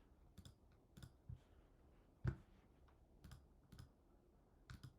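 Near silence with faint, scattered clicks, about eight in all, the loudest a little over two seconds in.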